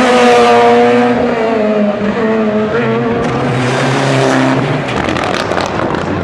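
Rally cars driving past at speed on tarmac. The first car's engine note drops in pitch in the first second, a Mitsubishi Lancer Evolution follows with a steadier note, and a quick burst of sharp cracks comes near the end.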